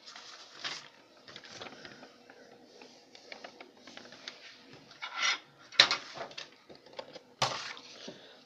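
Sheets of paper rustling and being handled, with irregular scraping and two sharp knocks in the second half, the louder one about six seconds in.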